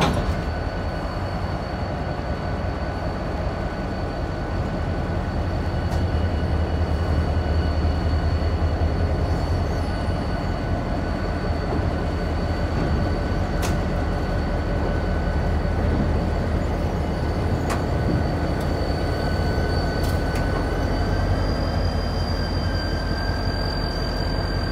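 Ex-Cedar Bay GP45 diesel locomotive running light at low speed onto a turntable: a steady low engine drone with a high whine over it that steps up slightly near the end, and a few sharp clicks.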